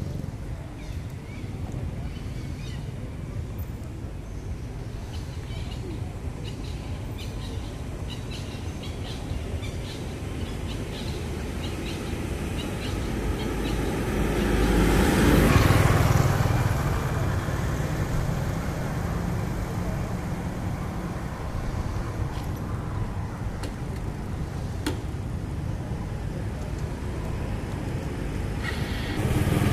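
A vehicle passing by on the road: its noise builds, peaks about halfway through, then fades, over a steady low background rumble.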